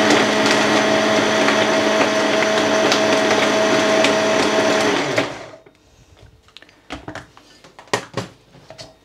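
Braun hand-blender motor unit driving a food-processor bowl, running steadily to mix milk into thick mango lassi, then winding down and stopping about five seconds in. A few light plastic clicks and knocks follow as the motor unit is lifted off the lid.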